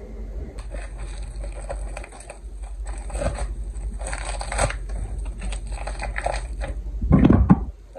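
Clear plastic wrapping around a frozen surimi package crinkling and crackling as it is handled, with a louder bump near the end.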